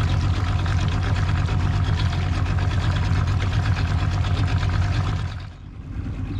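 An engine running steadily with a low hum and a fast, even firing rhythm. It dips in level about five and a half seconds in.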